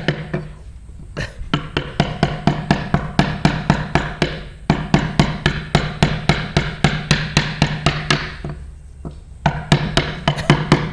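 A mallet tapping a carving chisel into wood in quick, even strokes, about four a second, with short pauses about a second in and near the end. This is hand finishing of a CNC-carved wood panel.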